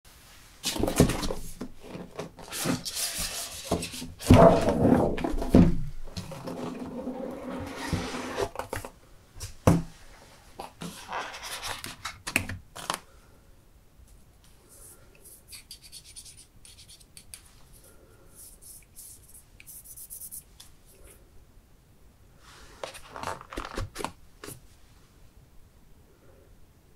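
Perfume boxes being handled: scratchy rubbing and scraping of the packaging, loudest through the first half, then quieter taps and light rustling, with another short spell of rubbing near the end.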